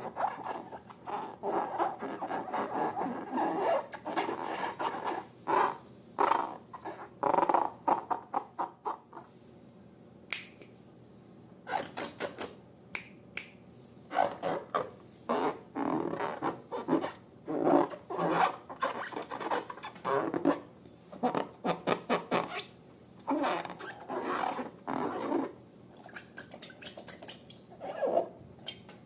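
Slime being squeezed and worked by hand, making irregular squishing, squelching and popping sounds in quick, uneven bursts with a few sharper clicks.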